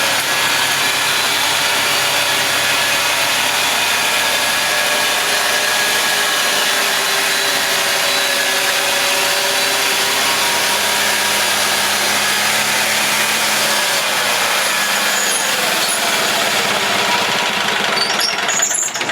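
Sawmill sawing lengthwise through a pine cant: the mill's motor running under load with the blade cutting steadily through the wood.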